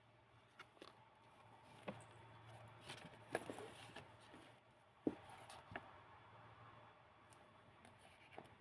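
Faint rustling and soft taps of old book-paper pages being handled and turned, with a few sharper ticks, the loudest about three and five seconds in.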